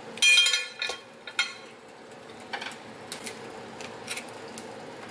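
A fork pushing grilled vegetables off a metal kebab skewer onto a plate. A short, loud ringing metal scrape comes near the start, then scattered light clinks and taps.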